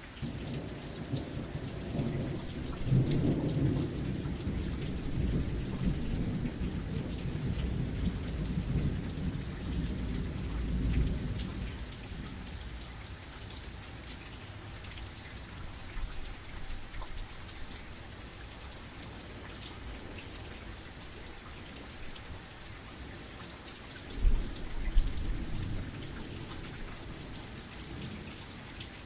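Steady heavy rain with rolling thunder. A long low rumble builds about a second in and dies away after about ten seconds, and a shorter, sharper peal comes near the end.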